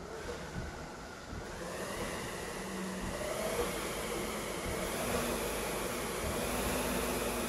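Concept2 SkiErg's air-resistance flywheel whirring as it is pulled, spinning up and growing louder over the first three seconds, then holding steady.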